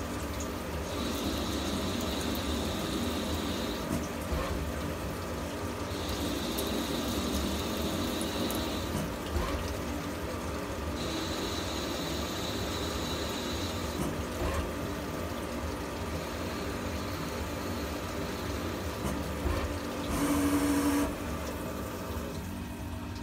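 CNC lathe threading the muzzle of a Ruger 10/22 barrel, with its spindle running and coolant spraying steadily onto the cut. A high whine comes and goes three times, each lasting about three seconds. Near the end a brief, louder burst is heard, then the spindle stops and only the coolant keeps pouring.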